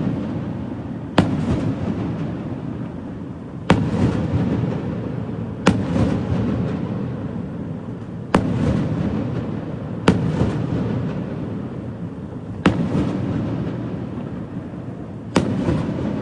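Aerial fireworks going off: seven sharp bangs spaced about two seconds apart, each followed by a long rumbling echo that fades before the next.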